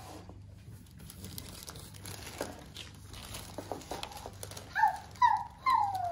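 Small clicks and rustling of handling, then a cat meowing three times near the end, each meow sliding down in pitch and louder than the rest.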